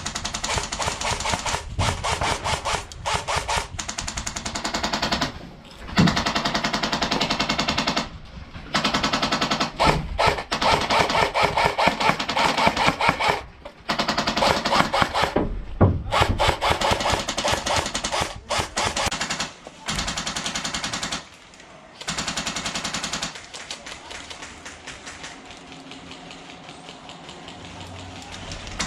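Electric airsoft gun firing long, rapid full-auto bursts, several seconds each with short pauses between, fainter over the last few seconds.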